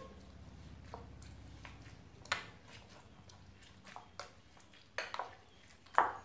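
Slime full of foam beads being stirred with a plastic spoon in a glass bowl: irregular wet squishing clicks and taps of the spoon against the glass.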